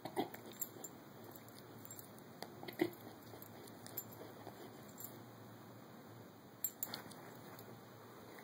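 Caucasian Ovcharka puppy chewing a pizzle, with faint, irregular clicks and crunches from its teeth on the chew.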